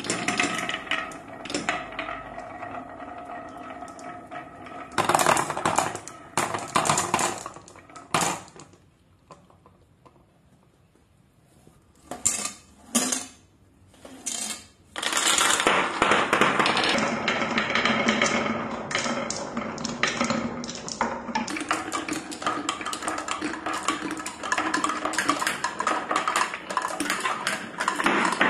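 Glass marbles rolling and clattering down a HABA wooden wave slope and plastic marble-run tracks: a dense rattle of clicks. About nine seconds in it drops to nearly quiet, a few separate clicks follow, and the dense clatter returns about fifteen seconds in.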